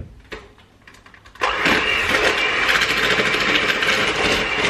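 Electric hand mixer switched on about a second and a half in, then running steadily as its twin beaters work butter, brown sugar and salt together in a bowl. A few light clicks come before it starts.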